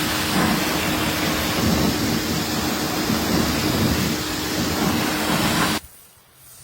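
Pressure washer running with a steady hum and a loud spray hiss, cutting off suddenly near the end.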